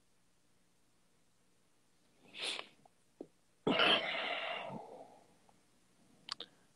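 A man's breath close to the microphone: a short sniff about two seconds in, then a louder, heavier exhale that starts suddenly and fades over about a second. Faint clicks near the end.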